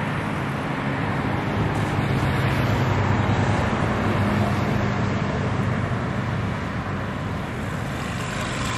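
Road traffic on a busy multi-lane road: cars and motorbikes passing, with a steady engine drone that swells a couple of seconds in and eases off again.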